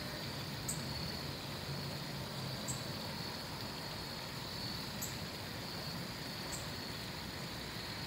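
Steady outdoor background noise: an even hiss over a low hum, with four faint high ticks at uneven gaps.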